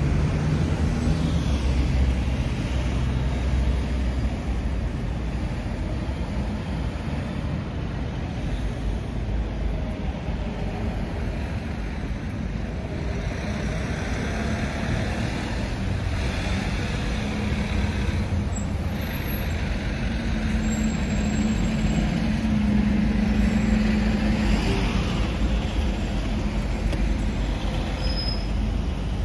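Road traffic driving past close by: cars and vans moving along the roadway, giving a steady mix of engine and tyre noise.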